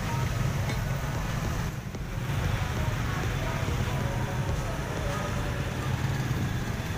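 Busy street traffic heard from a moving motorbike: a steady low rumble of engines and road noise with wind on the microphone, and other motorbikes passing close by. The level dips briefly about two seconds in.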